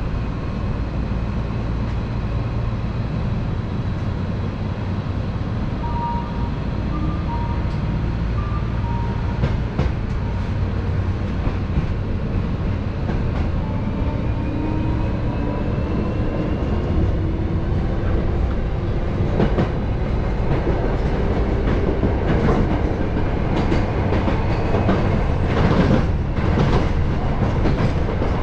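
Hankyu 7000-series electric train running, heard from inside behind the driver's cab: a steady rumble of wheels on rail with a thin motor whine rising in pitch around the middle. Sharp clacks of wheels over rail joints come more often in the second half.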